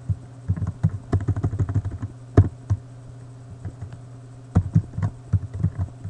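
Computer keyboard typing in short flurries of keystrokes with pauses between, as code is entered.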